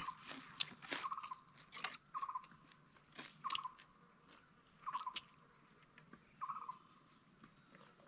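A man chewing roasted bird close to the microphone: wet smacks, crunches and clicks come in short bursts about every second or so, and he then sips from the open end of a green bamboo tube.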